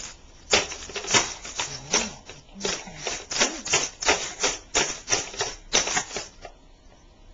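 Computer keyboard keys being struck in an irregular run of clicks and clacks, about three a second, stopping about a second before the end.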